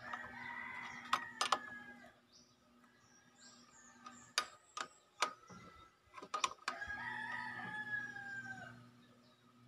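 A rooster crows twice, each crow about two seconds long, one at the start and another about seven seconds in. Sharp metallic clicks and taps from a wrench on the motorcycle's brake banjo bolt come between and over the crows, the loudest a pair of clicks just over a second in.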